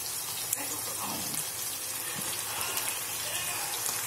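Skinless longganisa sausages frying in oil in a nonstick pan: a steady sizzling hiss with small crackles, and one sharp pop about half a second in.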